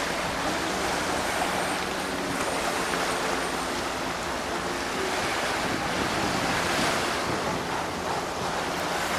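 Small waves washing over rocks and sand at the shoreline, a steady rushing surf sound, with wind buffeting the microphone.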